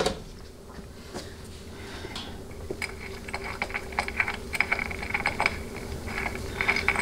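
Small metallic clicks and ticks of a steel bolt being unscrewed by hand from a feed port in a 200-4R transmission center support and set down, with one sharp click at the start and the ticking busier in the second half.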